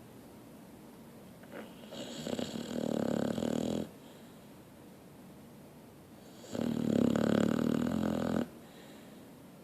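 Slow, regular snoring: two long snores of about two seconds each, one starting about two seconds in and one about six and a half seconds in, with quiet between them.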